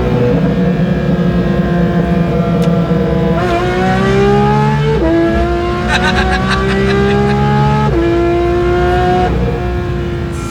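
Porsche 911 GT3's naturally aspirated flat-six accelerating hard through the gears, its pitch climbing and then dropping sharply at each gear change. The engine fades near the end.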